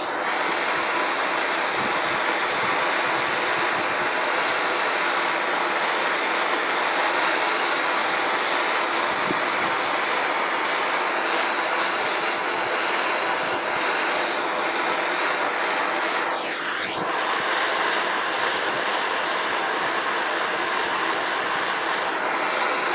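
Bernzomatic MAP-Pro torch burning MAP gas with a steady hissing flame, played over gasoline-blotted oil stains on concrete to burn them out. The tone of the hiss sweeps a few times as the flame is moved.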